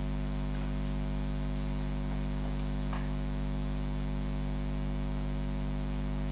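Steady low electrical mains hum, with a couple of faint clicks about one and three seconds in.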